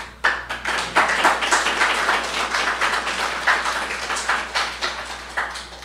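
Audience applauding, many hands clapping at once; it starts suddenly and slowly tapers off over about five seconds.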